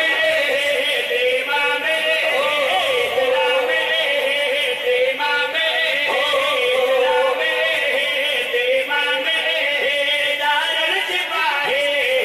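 Men's voices chanting a qasida, one lead voice at a microphone with other men singing along, in one long continuous passage.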